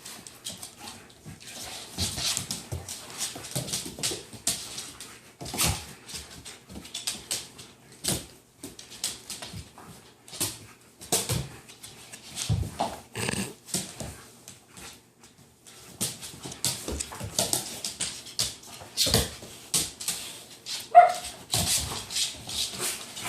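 German shepherd puppies play-fighting: a run of short, irregular snorts and scuffles, with one brief high whine or yip near the end.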